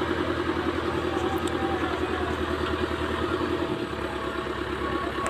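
Backhoe loader's diesel engine running steadily with a fast, even throb.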